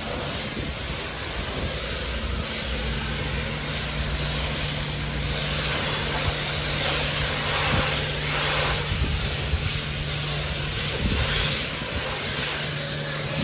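Water jet spraying onto a car during a wash: a steady, loud hiss, with a steady low hum underneath from about two seconds in.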